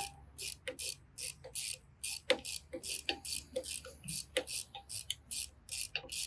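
Ratchet wrench clicking in short bursts, about three strokes a second, as nuts are tightened on a bolt.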